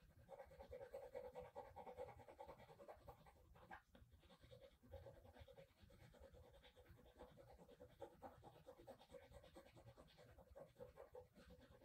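Faint scratching of a 2B graphite pencil shading on paper, in short irregular strokes, over a faint steady hum.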